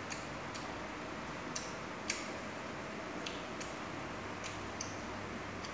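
Eating sounds: irregular light clicks of chopsticks against a plastic compartment food tray, about nine in all, over a steady low hum.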